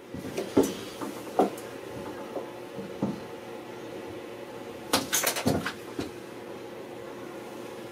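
Scattered knocks and thuds of a plywood shower pan being handled and set into place on a van's ribbed metal floor, with a denser run of clatter about five seconds in, over a steady low hum.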